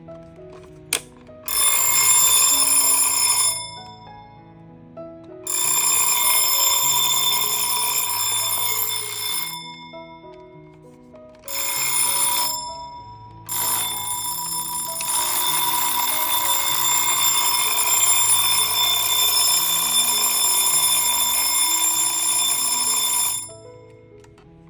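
Citizen 8RZ085 alarm clock's mechanical bell ringing in four bursts that start and stop abruptly; the last runs for about ten seconds. Background music plays underneath.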